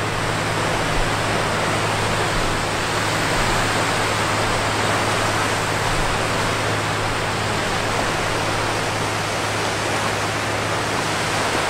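Steady rushing noise of wind and small waves washing onto a sandy Lake Michigan shore.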